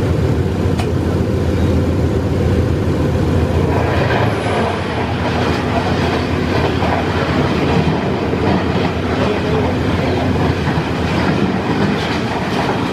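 Diesel locomotive running at speed, heard from inside the cab: a steady engine drone under the rumble and clatter of wheels on the rails. About four seconds in, a rougher rush of rumble and clatter joins it as the locomotive runs close alongside a passenger train's coaches on the next track.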